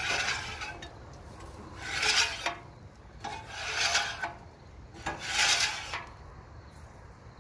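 Metal scraper dragged across the steel top of a Blackstone flat-top griddle, clearing off cooked residue in four rasping strokes about one and a half seconds apart.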